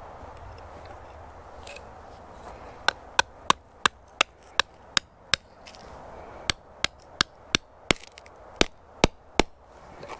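Tent stake being driven into packed snow with a hand hammer: two runs of about eight sharp hammer strikes each, about three a second, the first starting about three seconds in and the second after a short pause.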